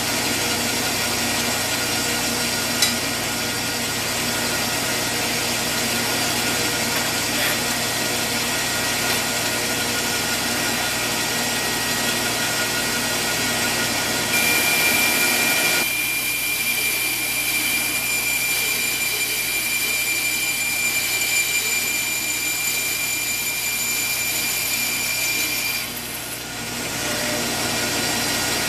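Vertical bandsaw running and cutting aluminium flat bar, a steady machine noise with the blade hissing through the metal. A strong high steady tone joins about halfway through and stops a couple of seconds before the end.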